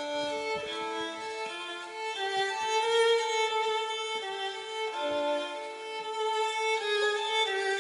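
Violin music: slow, held notes that step from pitch to pitch, often two or more sounding together.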